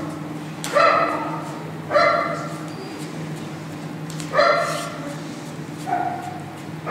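A dog barking, four single barks spaced a second or more apart, over a steady low hum.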